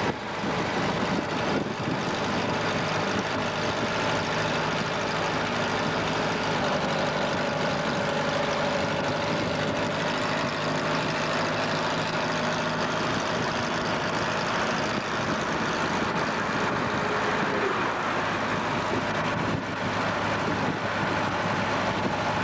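Steady running noise inside the cabin of a vintage car cruising at road speed: engine, tyre and wind noise blended into an even drone.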